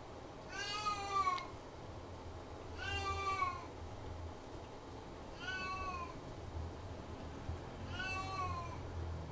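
Domestic cat meowing four times, about two and a half seconds apart, each meow falling in pitch at the end.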